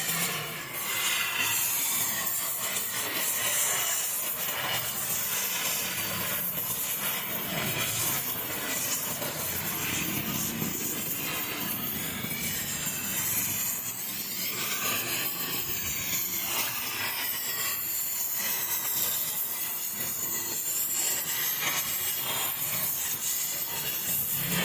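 Steady hissing and scraping noise of metalwork on a cast-iron tractor engine block, with many short rasping strokes.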